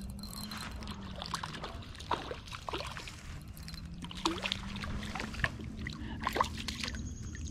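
Light, irregular splashing and dripping of water: a small rainbow trout thrashing as it is brought in from the pond.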